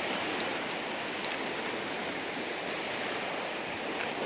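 Steady wash of sea water on the shore, an even rushing noise with a few faint ticks.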